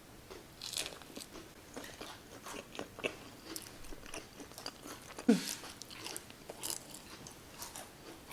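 Close-miked chewing and crunching of crispy fried food, an onion ring, in many short irregular crackles. About five seconds in there is a brief, louder low sound that slides down in pitch.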